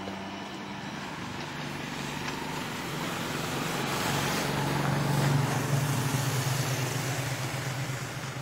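Motor vehicle engine hum and road noise. It grows louder about halfway through, then eases off.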